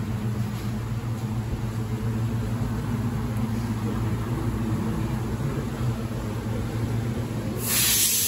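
Steady hum of machine-shop equipment. A loud, even hiss of air starts near the end.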